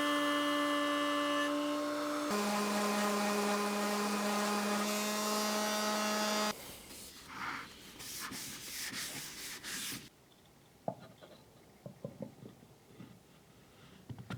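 A small electric power tool runs steadily, its pitch dropping about two seconds in, and cuts off about six seconds in. Then wood is rubbed in short strokes for a few seconds, followed by a few faint light knocks.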